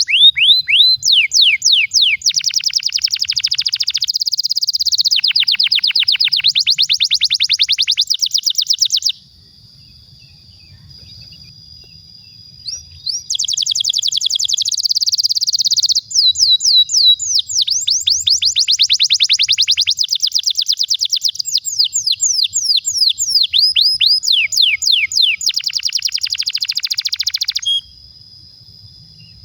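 Canary singing a long rolling song of fast trills of repeated notes and quick falling sweeps. It breaks off for about four seconds near the first third, sings again, and stops near the end, leaving a faint thin steady whistle in the pauses.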